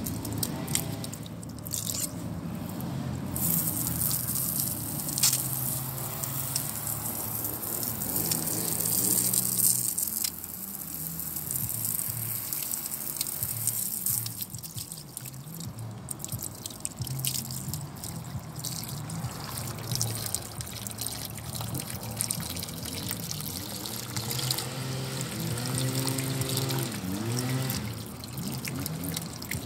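Water from a garden hose spraying and splashing onto a car tire and wire wheel as the soap is rinsed off, over music playing in the background.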